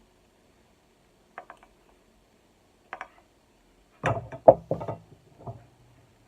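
Scattered knocks: a couple of light taps, then a quick run of louder knocks and clatters about four seconds in.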